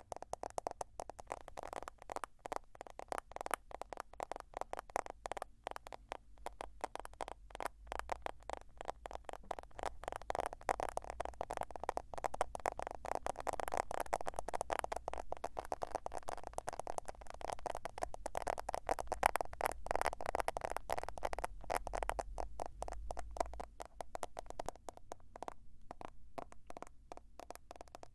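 Rapid, continuous tapping on a smartphone, many small clicks a second.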